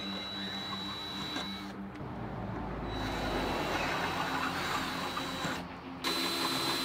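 Cordless drill boring 3/8-inch holes through the Jeep's sheet-metal body: a steady motor whine that stops briefly about two seconds in, then resumes with rougher cutting noise and gets louder near the end.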